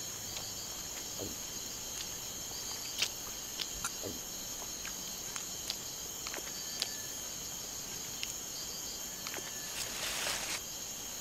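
Night insect chorus of the tropical rainforest: crickets and other insects trilling steadily at several high pitches, with scattered sharp clicks and a brief rustle about ten seconds in.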